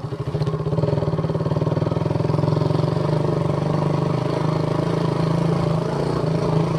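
KTM Duke 200's single-cylinder four-stroke engine running at low revs while the bike moves slowly. Its separate pulses are plain at first and smooth into a steadier note after about two seconds.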